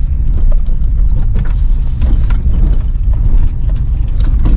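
Car jolting over a rough rocky track: a loud low rumble with irregular clicks and knocks as the suspension and shock absorbers work over the stones.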